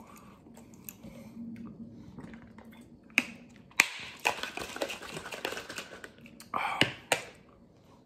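Plastic shaker bottle being handled: two sharp clicks a little over three seconds in, then a couple of seconds of rattling, shaking noise with small ticks, and a louder burst of handling noise with a click near the end as it is lifted to drink.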